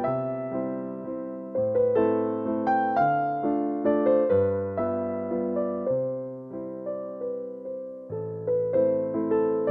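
Background music: a piano playing a slow, gentle melody over bass notes, each note struck and fading away.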